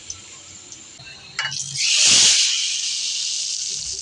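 Hot-oil tadka of garlic and dried red chillies poured into a pot of boiled toor dal: a short knock, then a sudden loud sizzle about two seconds in that slowly dies down to a steady hiss. Before it, faint frying hiss of the oil.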